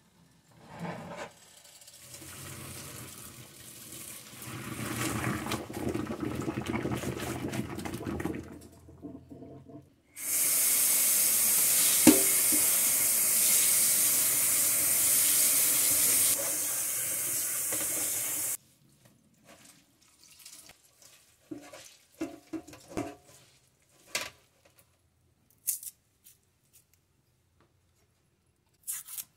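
Kitchen tap running hard onto blanched kale in a mesh strainer in a stainless steel sink, a steady rush of water that starts about ten seconds in and shuts off suddenly after about eight seconds. It is preceded by a softer, uneven noise and followed by scattered light clicks and knocks of a knife on a wooden cutting board as garlic is peeled.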